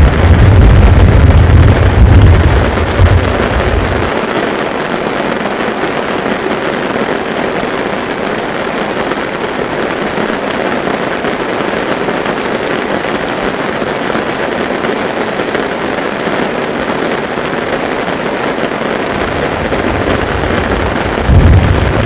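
Steady heavy rain. A deep rumble of thunder runs through the first four seconds or so, and another roll begins near the end.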